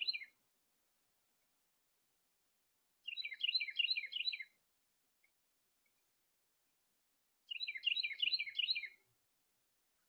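A songbird singing: a short chirp at the start, then two songs about three and seven and a half seconds in, each about a second and a half of quickly repeated high notes.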